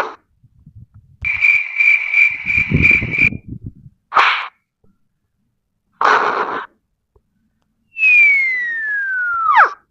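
A string of cartoon comedy sound effects. First comes a pulsing whistle of about three beats a second, then two short noisy bursts, and near the end a long falling whistle that drops sharply at its close.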